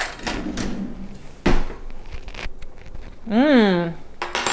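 A woman hums one "mmm" of enjoyment while tasting food, rising then falling in pitch, about three seconds in. About a second and a half in there is a sharp knock, with light clatter before it.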